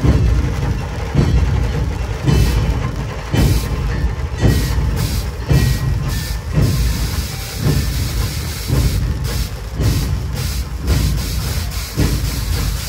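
Short hissing blasts from stage CO2 jets, over a deep booming beat that comes about once a second.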